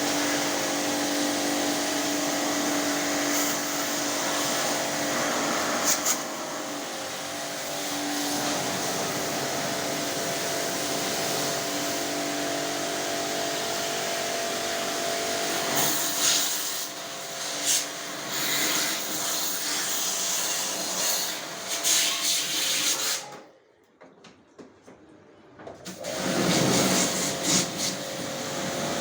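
Portable pressure-washer pump motor running with the hiss of its water jet as it sprays an air conditioner clean. It stops for a couple of seconds near the end, then starts again.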